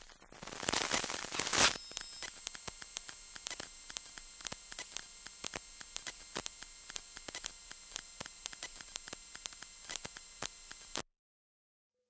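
Analog-style electrical interference sound effect: a loud swell of static hiss, then steady crackling static with a faint hum and irregular sharp clicks, cutting off suddenly near the end.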